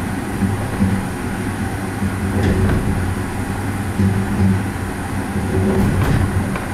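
Skyrail gondola, a small cabin hung from a suspended track and pulled by a moving cable, running along the line: a steady rumble with a pulsing low hum, and a couple of sharp clicks about two and a half and six seconds in.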